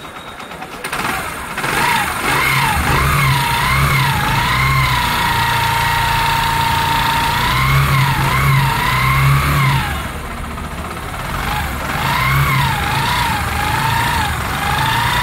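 Bajaj Discover 100 single-cylinder motorcycle engine being revved, the throttle blipped up and down, held steady for a few seconds, eased off around ten seconds in and blipped again, with a whine that rises and falls with the revs. This is the abnormal noise the mechanic puts down to an over-tight, overheated automatic cam chain tensioner and a worn, loose timing chain.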